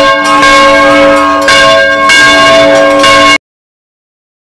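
Bell tolling, its tones ringing on and struck afresh twice about a second and a half and two seconds in, then cut off abruptly about three and a half seconds in.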